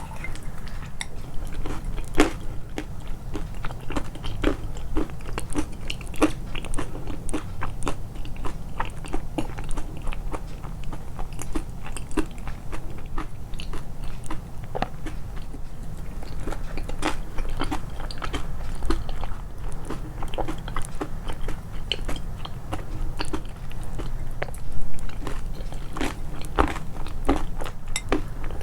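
A person chewing crunchy food with the chewing sounds emphasized: a dense, irregular run of crisp crunches.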